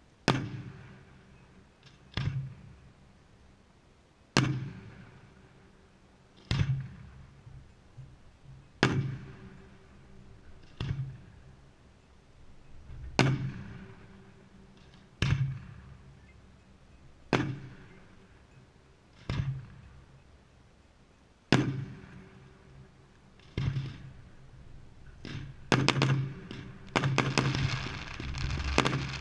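Aerial firework shells bursting in the sky, one loud bang about every two seconds, each trailing off in an echo. Near the end the bangs come quickly one after another, mixed with crackling.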